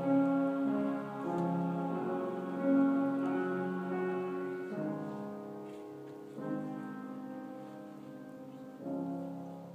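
Mixed choir singing slow, held chords that change every second or two; new chords enter about halfway through and twice more, and the singing grows softer toward the end.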